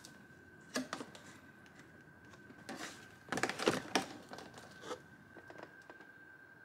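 A few short clicks and knocks of things being handled, busiest about halfway through, over a faint steady high-pitched hum.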